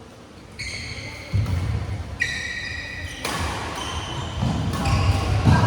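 Sports shoes squeaking on a badminton court floor, two squeaks about a second long, with dull thuds of players' footwork through the second half.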